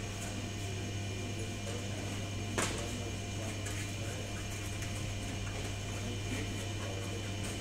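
Steady hum of factory machinery: a low drone with several steady higher tones over it. A single sharp click about two and a half seconds in.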